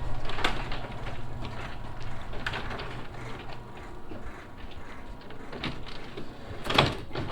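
Electric garage door opener running as the door moves: a steady low motor hum, strongest in the first few seconds, with a few short knocks and rattles.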